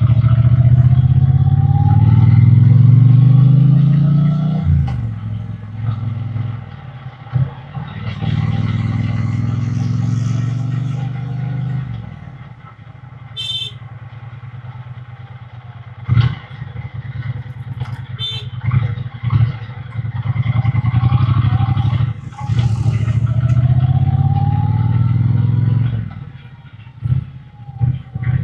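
Triumph Bonneville T120's 1200 cc parallel-twin engine and exhaust under way: it accelerates through the gears with its pitch rising and dropping at each shift, eases off to a quieter run in the middle, then pulls hard again. A few sharp clicks and brief high tones sound in the quieter stretch.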